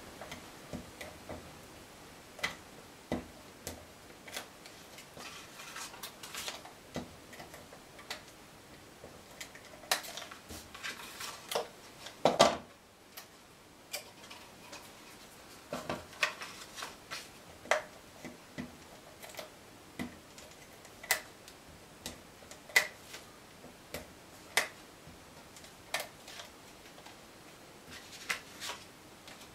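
Scattered sharp clicks and taps, every second or two, from a handheld Stampin' Up Fast Fuse adhesive applicator as it is pressed onto cardstock tabs and set down, with some soft paper handling between them.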